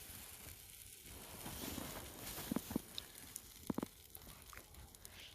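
Campfire crackling faintly, with a few short sharp clicks about two and a half seconds in and again near four seconds.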